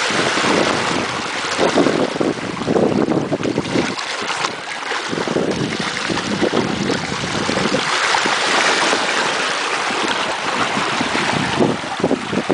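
Water rushing and splashing past the hull of a sailboat under way, mixed with gusty wind buffeting the microphone.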